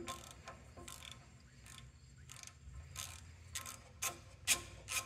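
Socket ratchet clicking in short bursts, roughly one every half second, as it is swung back and forth to spin the nut off the end of a diesel injection pump shaft; the last few bursts are the loudest.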